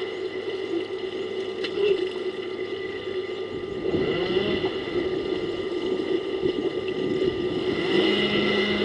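A steady mechanical hum, with a few short rising and falling pitch glides about four seconds in and again near the end.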